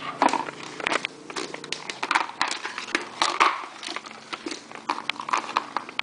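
Corrugated plastic hose of a homemade snail-style gold sluice being handled and flexed, crinkling and clicking in quick irregular bursts.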